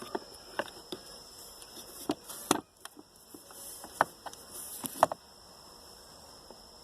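Scattered light clicks and knocks of the stock Focus ST and Focus RS shifter assemblies being handled and set down, about half a dozen irregular taps over the first five seconds.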